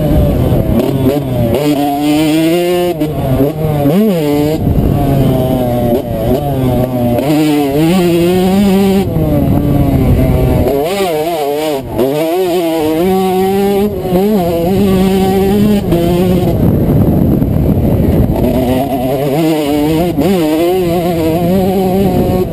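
Yamaha 125cc two-stroke motocross bike engine revving hard, its pitch climbing and dropping again and again as the rider works the throttle and gears, with wind buffeting the helmet camera's microphone.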